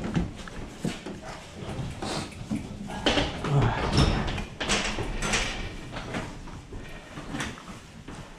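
Knocks, rattles and clatter of a bicycle being handled in an electric-train carriage and hoisted onto the overhead metal luggage rack, over a low steady hum.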